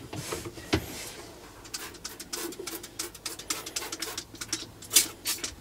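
Toilet-cleaning gel being squeezed from a plastic bottle around a toilet bowl: a string of short squirts and handling clicks, the loudest about five seconds in.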